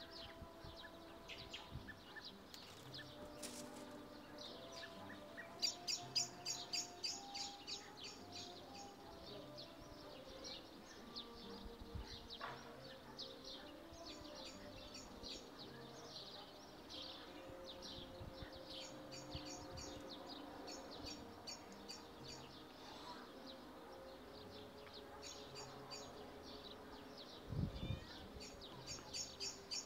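Small birds chirping in quick series of high chirps, coming in several bouts over faint outdoor background noise. A single soft low thump near the end.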